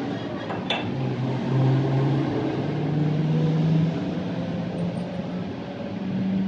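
A low mechanical hum from a motor or engine, rising slightly in pitch during the first few seconds, over steady background noise.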